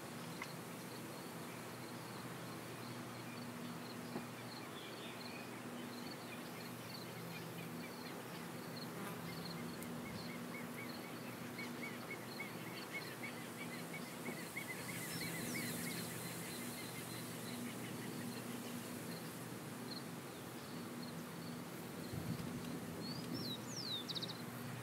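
Open-field countryside ambience: a steady low hum under a regular series of short high chirps, with a bird trilling fast in the middle and a couple of quick whistled bird calls near the end.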